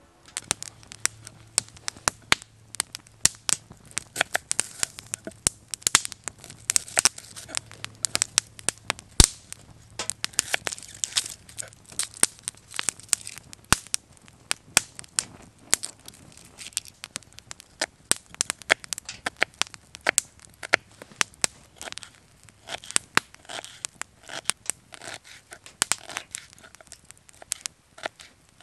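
Wood campfire crackling in a metal fire pan, with frequent irregular sharp pops and snaps.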